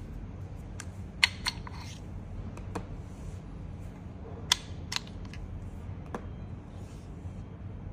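Sharp clicks and taps as the steel probes of a wireless barbecue thermometer are pulled out of their bamboo charging case and handled. Six or so clicks in all, the loudest in two pairs, over a steady low hum.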